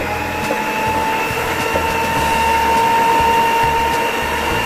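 Philips electric stand mixer running steadily with a continuous motor whine, its beaters whisking eggs as sugar is poured in a little at a time, beating until the sugar dissolves.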